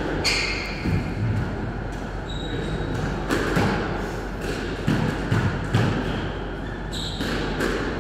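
Scattered ball bounces, thuds and footsteps on a squash court's wooden floor, with a few short high squeaks.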